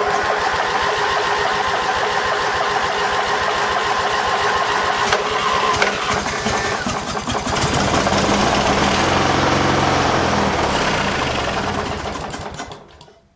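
15 hp lawn tractor engine starting up and running for about thirteen seconds on gas poured into the top of the carburetor, then fading away and stopping near the end.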